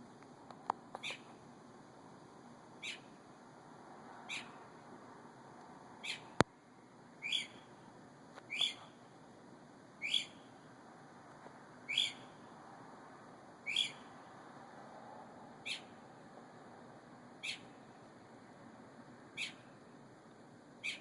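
A bird calling over and over, one short, sharp high note about every one and a half to two seconds, about a dozen times. A single sharp click about six seconds in.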